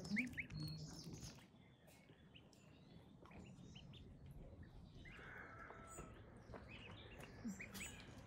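Faint high chirps and peeps from a group of downy waterfowl chicks in the grass, the loudest a quick pair about a quarter second in, with scattered chirps later.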